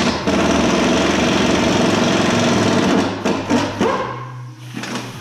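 Pneumatic impact wrench hammering hard on a rear suspension bolt for about three seconds, then stopping, followed by a few short bursts and metallic clinks.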